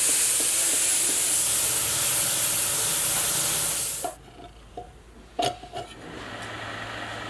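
A loud, steady hiss for about four seconds that cuts off suddenly. Then a few light clicks and knocks as a red plastic fan blade is handled and fitted onto a fan motor's hub, over a faint low hum.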